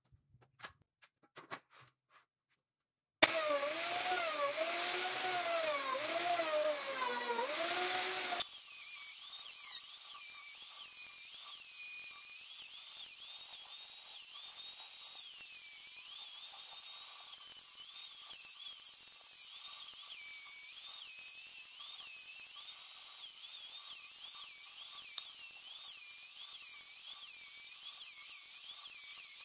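DCA electric plunge router flattening a wood slab, its motor whine dipping and rising over and over as the bit bites and is pushed along. It starts about three seconds in and jumps to a much higher pitch at about eight seconds.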